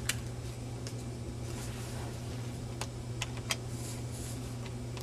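Scattered light clicks and crackles of a folded paper origami model being handled, about six in all, over a steady low hum.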